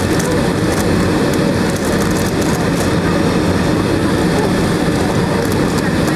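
Steady low rumble and hum of a Boeing 757's Rolls-Royce RB211 engines at idle, heard inside the cabin.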